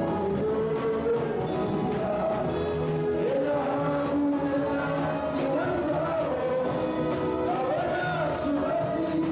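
Live band music: a man singing into a microphone over electronic keyboard and drums, with a steady beat.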